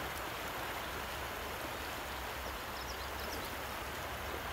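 Fast river current rushing steadily. A few faint high chirps come through about halfway in.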